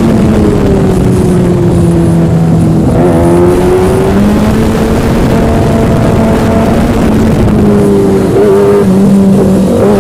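Yamaha engine running under way during a ride, loud and continuous. Its pitch sinks over the first few seconds, steps up about three seconds in, then holds fairly steady with a brief wobble near the end.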